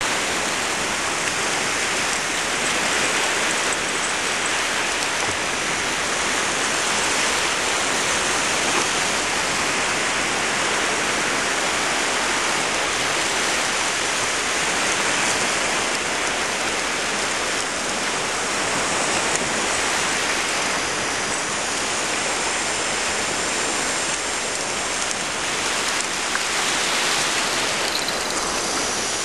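Small waves washing onto a sandy shore, a steady rushing noise that keeps an even level throughout.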